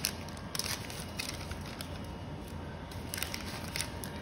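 Foil pouches of rapid test cassettes being torn open and crumpled by hand: irregular crinkling and crackling of foil, in short clusters.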